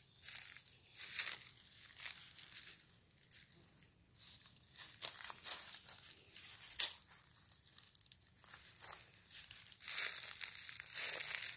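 Dry fallen bamboo leaves crackling and rustling in irregular bursts as they are stirred and stepped on close by, with a couple of sharper crackles about five and seven seconds in and a denser patch of rustling near the end.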